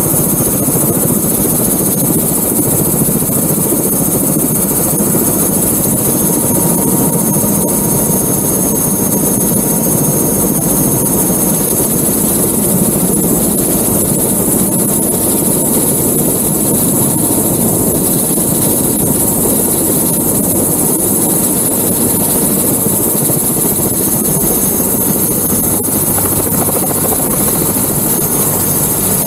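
Airbus H125 helicopter running close by on the ground, its turbine engine and rotor making a loud, steady noise with a thin high whine over it.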